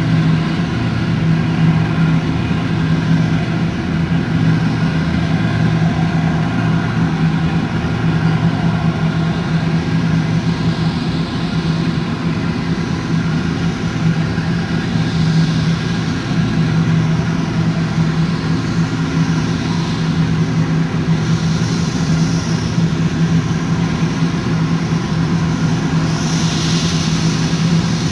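John Deere combine and the tractor pulling its grain cart running side by side while the combine harvests soybeans and unloads on the go: a steady, unbroken diesel engine hum.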